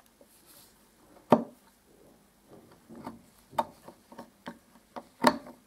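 Utility knife blade picking and scraping at the wood around a snapped screw stub to clear it out: a run of irregular sharp clicks and short scrapes, the loudest about a second in and near the end.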